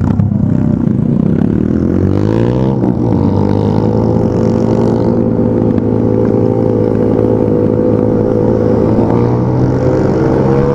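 Motorcycle engine revving: its pitch climbs a couple of seconds in, then holds steady at high revs.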